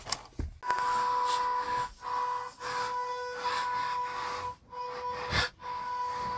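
RC crawler's electric drive whining at a steady high pitch while it crawls, cutting out and restarting several times as the throttle is let off. A few sharp knocks come through, the loudest a little past five seconds in.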